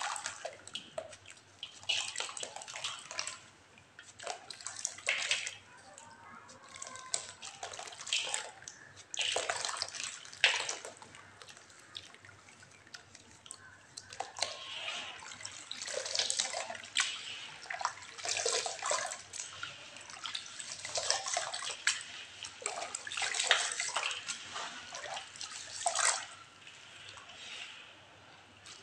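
Water splashing and sloshing in short, irregular bursts every second or two as cowrie shells and clay toys are stirred in it.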